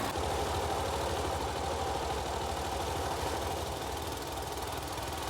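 Small engine-driven pump running steadily with a fast, even low pulse, pumping water out of a sunken wooden narrowboat's hull.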